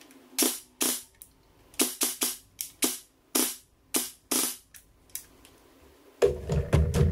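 JG M4A1 airsoft electric gun fired on semi-automatic: about ten sharp single shots at an uneven pace over four seconds, a test of the repaired gearbox, contact points and trigger. A louder, lower sound follows about six seconds in.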